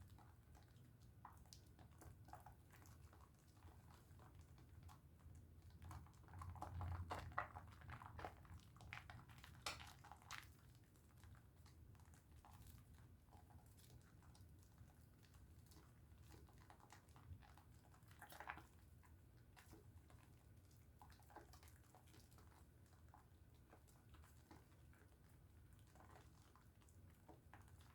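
Faint wet squishing and crackling of a pink Dove soap bar being lathered, busiest about a quarter of the way in, with one more brief burst later.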